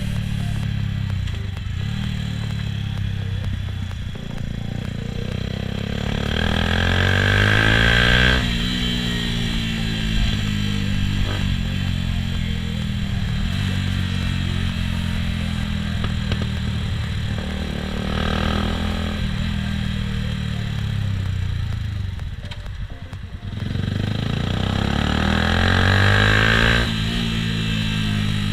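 Yamaha YZF-R125's single-cylinder four-stroke engine through an aftermarket Akrapovic exhaust, riding under way. The engine note climbs as it accelerates and drops sharply at a gear change, twice: about a third of the way in and again near the end. There is a short off-throttle dip in between.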